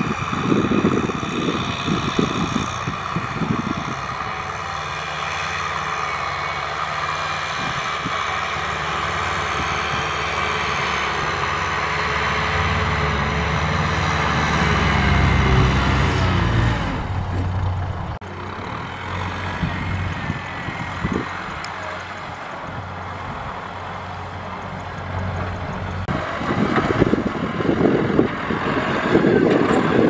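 Kubota M6040SU tractor's diesel engine running steadily under load as it pulls a disc plough through the ground. The low engine rumble grows louder past the middle, then drops suddenly, with rough crackling near the start and the end.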